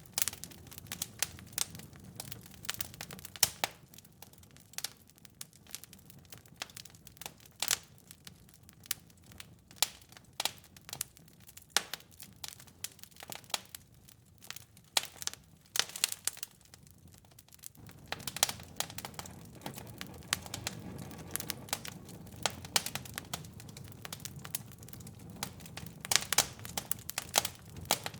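Wood fire crackling in a fireplace: irregular sharp pops and snaps over a low rumble of flames. The rumble gets suddenly louder about two-thirds of the way through.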